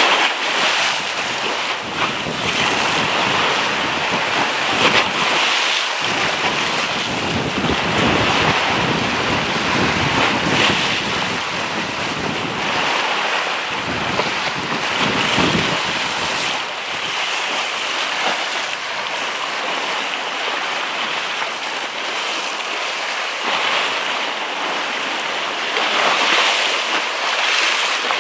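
Strong wind buffeting the microphone over a steady wash of choppy sea. The gusts come hard and unevenly at first and ease in the last ten seconds or so.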